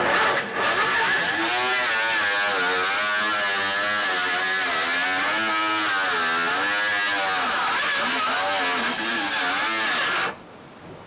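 Hand-held power cutting tool running for about ten seconds as it cuts carbon-fibre strips, its motor pitch wavering up and down as it bites into the material. It starts and stops abruptly.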